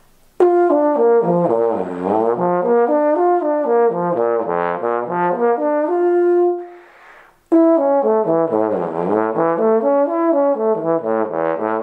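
Bass trombone playing a range exercise that starts on F: quick runs of notes sweeping down into the low register and back up, ending on a held F. It goes through twice, with a breath taken between the two runs about seven seconds in.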